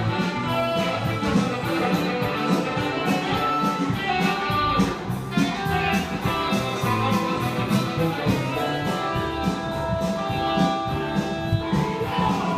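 Instrumental music with a steady beat, led by a plucked guitar.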